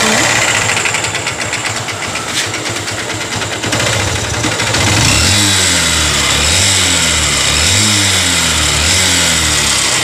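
Honda CB Shine single-cylinder engine idling with a rapid tick-tick from the top end, then revved several times, its pitch rising and falling. The mechanic finds that engine oil is not reaching the cylinder head and blames the noise on that. A new timing chain and adjuster have not cured it.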